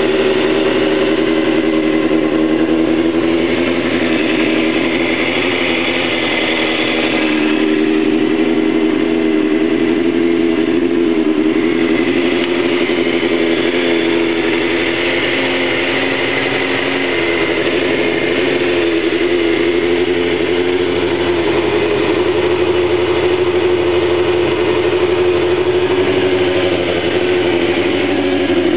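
Suzuki GSX-R750's inline-four engine idling steadily through an aftermarket Venom exhaust can, its pitch wavering only slightly and never revved.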